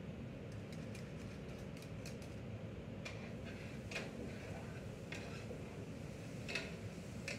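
A few light clicks and clinks of kitchenware over a steady low background noise, the sharpest about six and a half seconds in.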